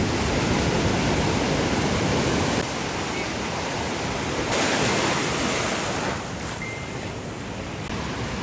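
Ocean surf: a steady rush of waves breaking and washing in, its level shifting in steps a few times.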